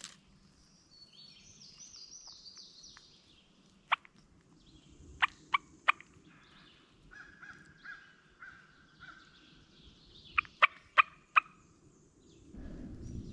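Wild turkey calling: a run of repeated yelps, then several short, sharp clucks in quick clusters of three and four. A small bird's high, stepped, falling song sounds faintly near the start.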